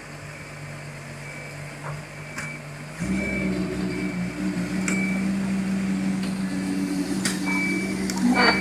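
Drilling rig's diesel engine running steadily, then rising to a higher, louder speed about three seconds in and holding there. A short high beep repeats at intervals throughout.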